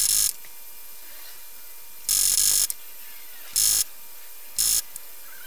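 Two propane torches hissing steadily as a steel rod is heated in their flames, broken by five short, loud bursts of rough noise of unclear source; the longest is about two seconds in.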